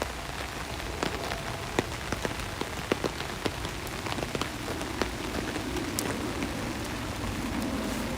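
Steady rain with many sharp individual drops ticking on a hard surface close by. A low rumble builds in the last few seconds.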